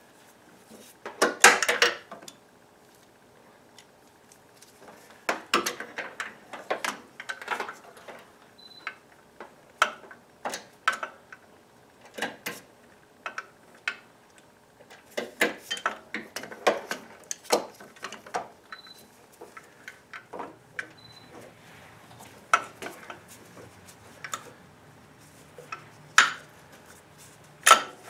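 Hand tools clinking and knocking against metal in a car's engine bay: irregular clanks of wrenches working at bolts, loudest about a second and a half in and twice near the end.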